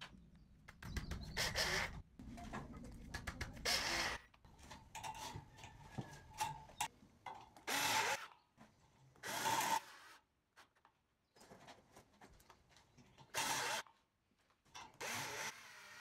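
Galvanized steel ceiling channels and hangers scraping and clattering against each other as they are handled and clipped together, in about six short bursts with quieter clicks between.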